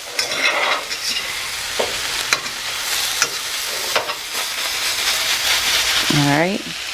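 A fork raking sliced zucchini, squash and peppers around a hot pan, with scattered scrapes and taps on the pan bottom over a steady sizzle.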